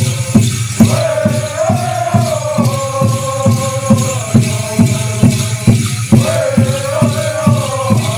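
Animal dance song: voices chanting together in unison over a steady drum beat of a little over two beats a second, with a constant shaking rattle sound.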